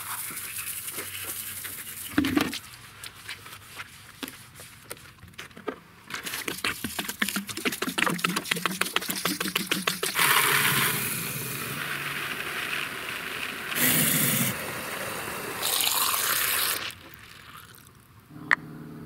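Water running from a garden hose and glugging in and out of plastic gallon jugs, in several separate bursts of pouring and filling. There is a sharp click near the end.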